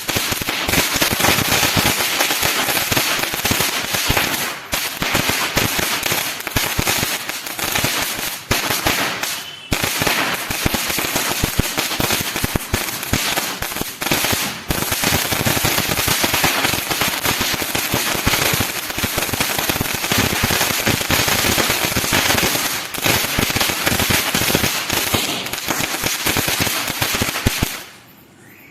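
'90 Watts – Starvell' firework being test-fired: a dense, unbroken crackling of rapid small bangs that goes on for nearly half a minute, dipping briefly a few times, then stops about a second before the end.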